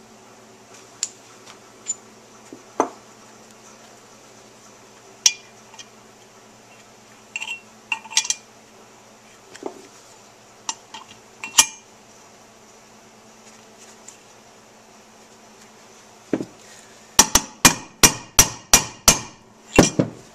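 Bearing driver being struck with a hammer to seat a bearing in an aluminium motorcycle crankcase: scattered metal clinks as the driver is set in place, then about nine quick hammer strikes near the end. The bearing will not drop in by itself and needs persuading.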